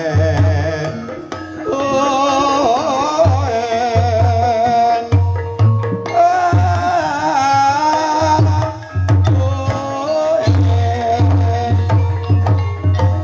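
Javanese ebeg gamelan music: hand drums strike a steady rhythm over a pulsing low beat, with a singer's voice in long wavering phrases above.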